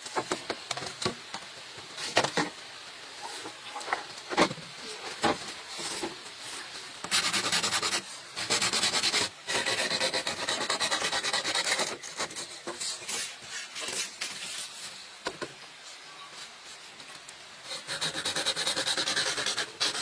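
A hand tool rasping against bamboo in bursts of rapid back-and-forth strokes, each burst lasting from about a second to a few seconds. There are a few sharp knocks in the quieter first part.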